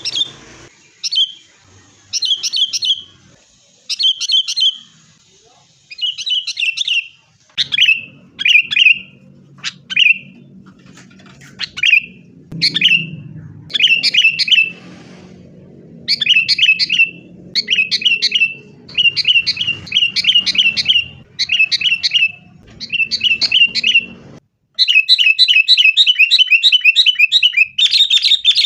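Sooty-headed bulbuls calling: short chattering phrases repeated about once a second, then a fast, unbroken run of notes in the last few seconds.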